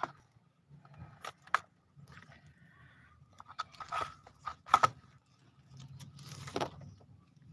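Hands rustling through a potted lemongrass clump, with several sharp crunches and snaps as stalks and dry leaves are picked.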